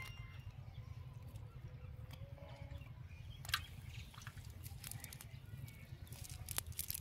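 Hands working through a fishing net to pick out the catch: soft rustles and scattered small clicks over a low steady rumble, with a sharper click about three and a half seconds in.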